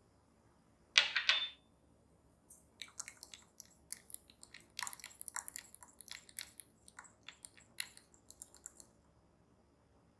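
A thin wooden stick stirring instant yeast into milk in a glass measuring cup, with quick, irregular clicks and taps against the glass for about six seconds. About a second in there is a sharp clink with a brief ring, from the small glass yeast bowl being set down.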